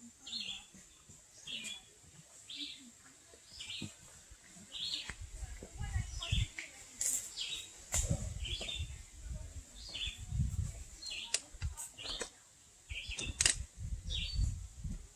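A bird repeating a short, high chirp about once a second. Irregular low rumbling comes and goes from about five seconds in.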